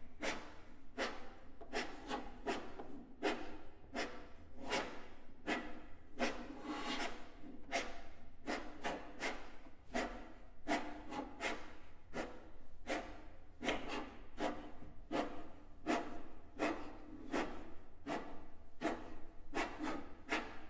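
Hands rubbing and brushing over the wooden bodies of two violins lying flat, in quick, irregular strokes about two a second.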